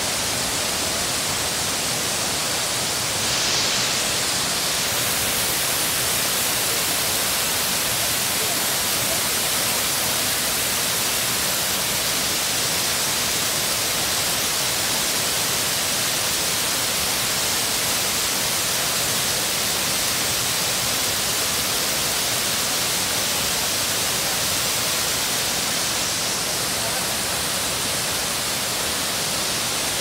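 Kapuzbaşı waterfall: falling water making a steady, dense rush with no let-up, briefly a little louder about three seconds in.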